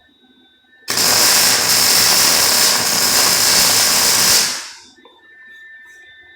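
MIG welder laying a bead on steel running-board tubing: one burst of steady welding noise that starts suddenly about a second in, lasts about three and a half seconds, and then dies away quickly.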